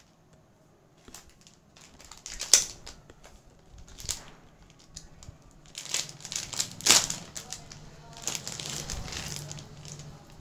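Plastic packaging crinkling and rustling as it is handled and unwrapped, with a few sharp clicks, the loudest about two and a half seconds in and again about seven seconds in.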